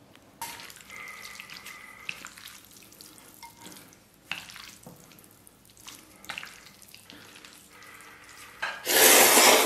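Chopsticks stirring and tossing noodles through a wet braised-pork topping in a ceramic bowl, giving uneven squishing and rustling. Near the end comes one loud slurp of noodles lasting under a second.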